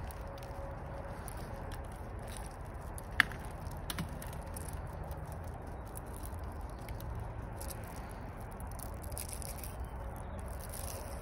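Dry beeswax honeycomb being broken and crumbled by hand into a bucket: light crackling with a sharp snap about three seconds in, over a steady low rumble.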